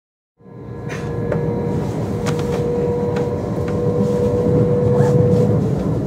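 Running noise heard inside a moving passenger train: a steady rumble of wheels on the track, fading in just after the start, with a steady high tone over it that stops near the end and a few light clicks.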